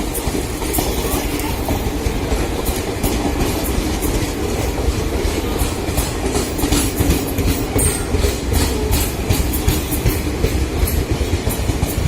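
Brahmaputra Mail express passenger train running through a station without stopping: a continuous rumble of coaches going past, with the clickety-clack of wheels over rail joints.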